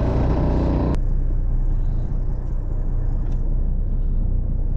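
Fishing boat's engine running with a steady low rumble. A broader rushing noise over it cuts off abruptly about a second in.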